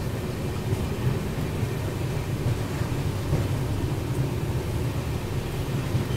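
Running noise of a moving passenger train heard from inside the coach: a steady low rumble under an even rushing hiss.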